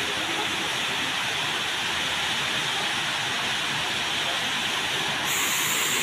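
Several waterfalls pouring into a pool: a steady rushing of falling water, with a brighter hiss joining about five seconds in.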